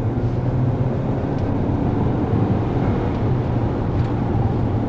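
In-cabin sound of a JAECOO J8 crossover accelerating at highway speed: a steady low engine drone with tyre and road noise as its 2.0-litre petrol engine pulls through the gears of its 7-speed robotic gearbox, which shifts smoothly with no jerks.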